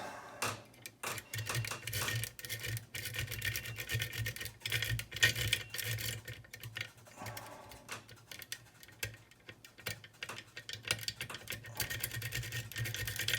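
Lock picks working the pin stack of an ERA rim cylinder lock: rapid, irregular small metallic clicks and scrapes as the pins are pushed and set under tension.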